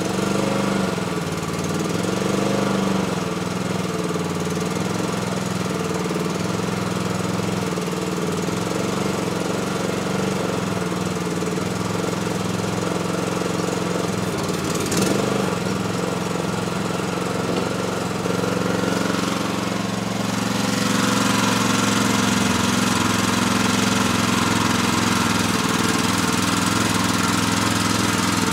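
The newly fitted engine of a Skidster mini skid steer running steadily. About twenty seconds in its pitch shifts and it gets a little louder; a single short click is heard a little past halfway.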